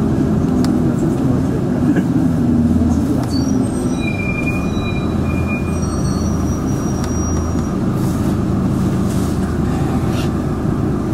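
Steady low rumble of a bus driving, heard from inside the cabin, with thin high-pitched squealing tones at several pitches for a few seconds in the middle.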